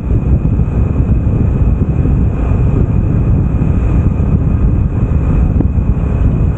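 Loud wind noise on the microphone over a motorcycle engine running as the bike rides along at speed.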